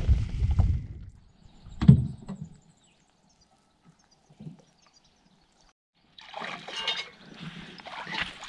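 A low rumble and a single loud knock in the first two seconds, then near silence. From about six seconds in, water splashes and sloshes unevenly around a small aluminium boat as a man wades beside it in the shallows.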